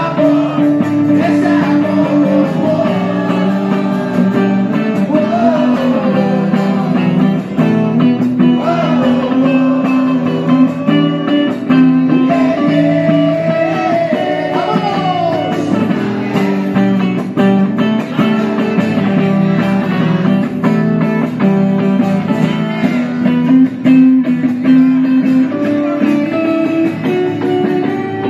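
Live rock song played acoustically by a band: guitars playing steady chords, with a melody line sliding up and down above them.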